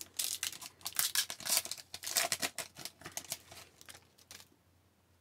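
Foil trading-card pack and cards being handled: a quick run of crinkling, tearing and rustling that stops about four and a half seconds in.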